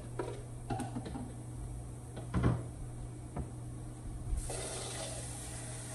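A few knocks and clunks of a kitchen cupboard and a cup being handled, the loudest about two and a half seconds in, then a steady hiss of tap water starting to run about four and a half seconds in.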